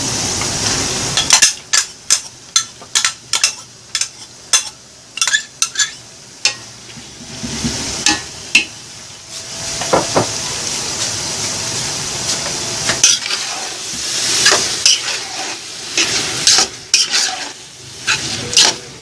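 Ground beef and sliced button mushrooms sizzling in a large aluminium pot, while a metal spoon stirring them clinks and scrapes against the pot in quick runs of sharp clicks. The clicking is thickest from a second or two in until about six seconds, and again in the last few seconds.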